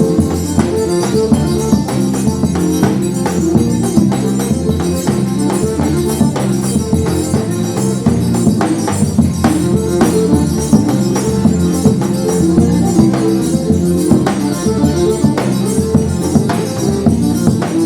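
A forró trio playing an instrumental tune: an accordion's melody and chords over a steady rhythm of zabumba drum strikes and a jingling triangle.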